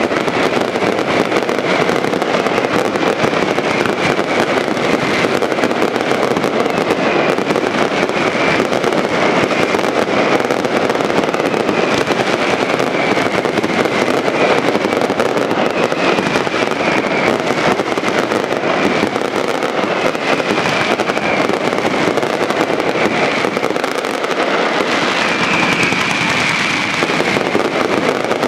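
A dense, unbroken barrage of fireworks, crackling and banging without a let-up. Short high whistles that drop slightly in pitch keep cutting through, loudest a few seconds before the end.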